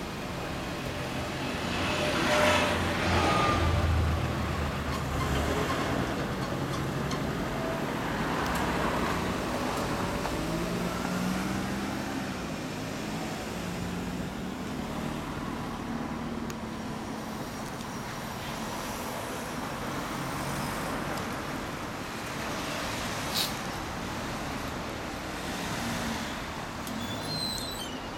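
Road traffic going by on a street, a steady rumble of passing cars and trucks; one vehicle passes loudly a couple of seconds in, and another goes by with a falling engine note about halfway through.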